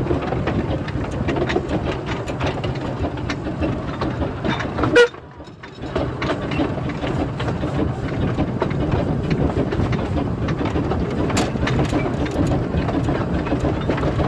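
Footplate sound of the Bagnall 0-4-0 saddle-tank steam locomotive Isabel running on narrow-gauge track: a steady rumble with scattered clicks and rattles. About five seconds in there is a sharp knock, then the noise drops away for under a second before the running sound resumes.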